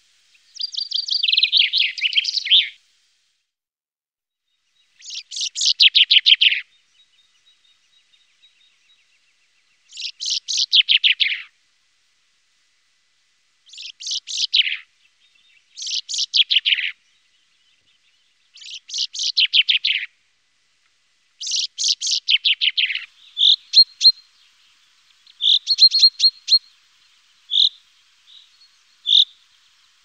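Common chaffinch singing: about seven song phrases, each a quick run of notes tumbling down in pitch over a second or two, with pauses of a few seconds between. Near the end the phrases give way to short, separate high notes.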